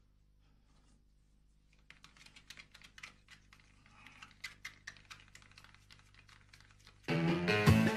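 Small irregular clicks and taps of toiletry bottles and a jar of cream being handled on a bathroom shelf. About seven seconds in, loud upbeat music starts suddenly.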